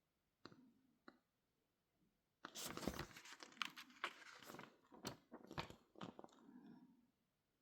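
Packaging being handled while unboxing: two short clicks, then from about two and a half seconds in, several seconds of dense scratchy rustling and sharp clicks, which stop near the end.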